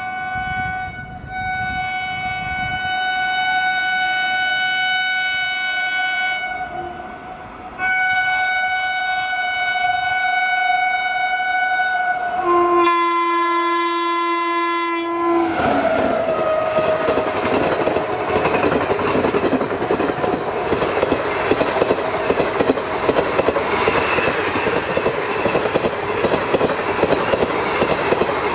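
WAP-7 electric locomotive's horn sounding as the train approaches: a long high blast, a brief break, another long high blast, then a shorter lower-pitched blast about 13 seconds in. From about 15 seconds in comes the rush and rapid clatter of the train's coaches passing at speed.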